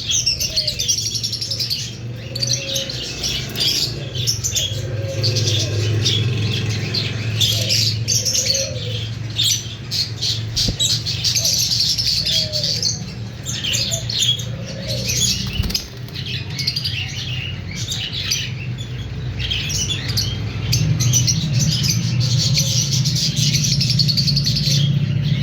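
A flock of lovebirds, lutino masked lovebirds among them, chirping and twittering without pause in rapid high calls, over a steady low hum.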